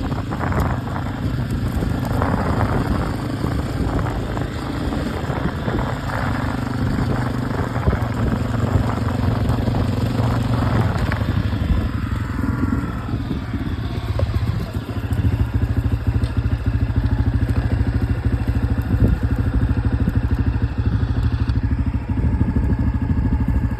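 Motorcycle engine idling, a steady low running note that becomes more even and slightly louder about fifteen seconds in.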